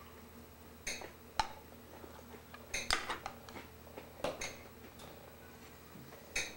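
A spoon clinking and scraping against a glass bowl as a toddler feeds himself, several short separate clinks spread through the stretch.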